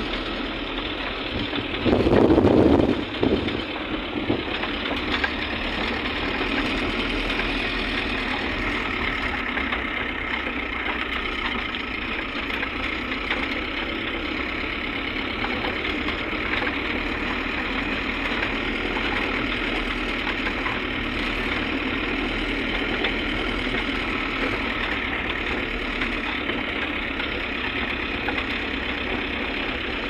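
Car engine running and tyres rolling on a dirt road, heard from inside the cabin as a steady rumble. There is a brief louder rumble about two seconds in.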